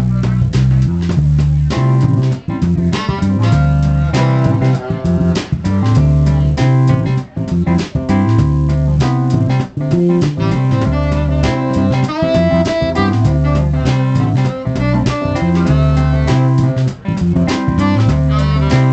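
A small live band playing a jazz tune: saxophone, electric guitar, keyboard and drum kit, over a steady repeating bass line.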